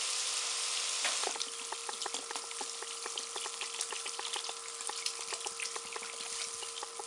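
Meat, calamari and saffron frying in olive oil in a paella pan: a dense sizzle that, about a second in, drops to a quieter crackle with many scattered pops as broth is poured into the pan.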